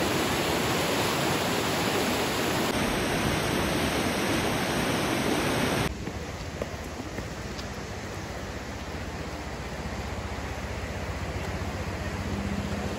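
Rushing whitewater of a fast mountain creek, a steady loud rush of water. About six seconds in it cuts to a quieter, more distant rush of the same water.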